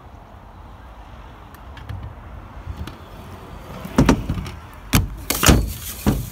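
Stunt scooter wheels rolling on tarmac, then four heavy knocks over about two seconds, starting about four seconds in, as the rider throws himself onto his knee pads on a skatepark ramp and the scooter clatters down.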